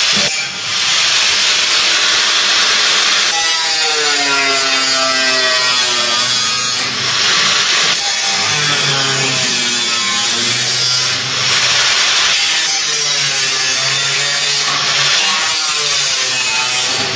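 Hand-held power tool working the steel bodywork of a Mk3 Ford Cortina: a loud, continuous hiss, with the motor's pitch sagging under load and climbing back several times. It lifts off briefly a few times, about seven and eleven seconds in.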